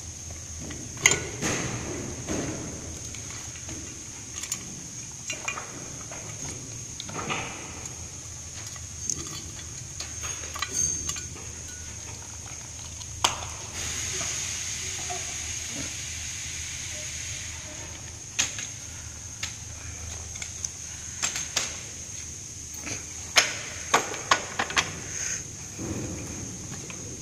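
Scattered clicks, knocks and clatter of tools and plastic parts being handled while a robot is taken apart to reach its control board and motor.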